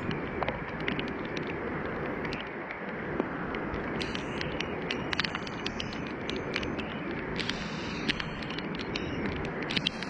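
Steady rush of heavy storm rain and wind, with many sharp, irregular ticks of raindrops striking nearby.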